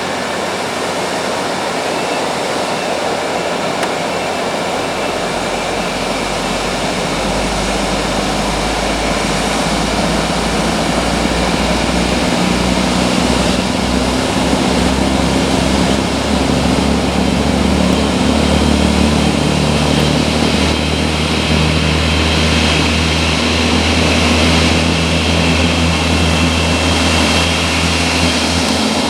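Jet engines of a Boeing 787-9 running with a steady whine, growing gradually louder as a deep rumble builds a few seconds in.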